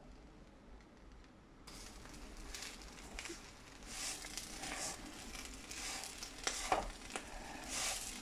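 A plastic spatula stirring and turning couscous with vegetables in a non-stick stir-fry pan over a light sizzle. The scraping and tossing starts about two seconds in and comes in uneven strokes.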